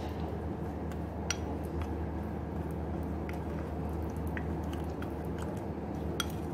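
Spoon stirring a thick, wet hair paste of ground coffee, tea and sparkling water in a bowl: soft squelching with a few light clicks of the spoon on the bowl, over a steady low hum.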